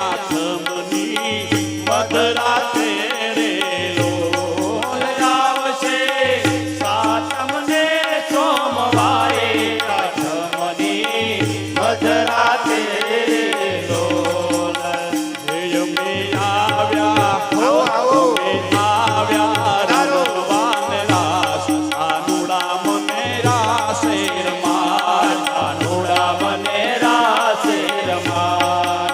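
Indian devotional music: a melodic lead line with ornamented, sliding pitch over percussion and a low note that repeats about every two seconds.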